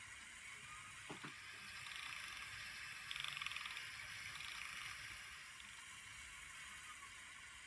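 Small geared electric motors of a radio-controlled model gantry crane whirring faintly as it carries its load, with a fast buzzing, ratchet-like stretch about three seconds in, over a steady hiss.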